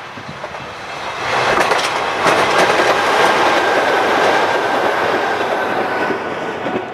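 Chichibu Railway electric commuter train passing close by: wheels clattering over the rail joints, building from about a second in, with a steady high whine through the middle as the cars go by, fading near the end.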